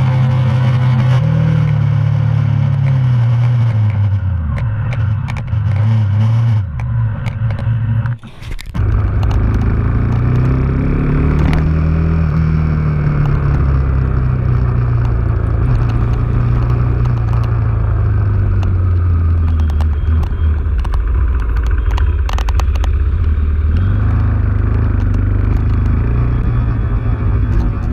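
KTM 390's single-cylinder engine running under way, its pitch rising and falling as the bike speeds up and slows, over road and wind noise. The sound dips sharply for a moment about eight seconds in.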